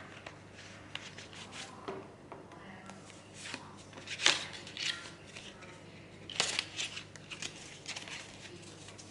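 A leather wallet and cards being handled: irregular rustling, rubbing and light clicks, with a few sharper scrapes.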